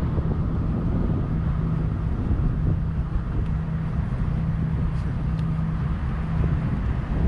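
Steady low motor hum with a rumble of wind on the microphone.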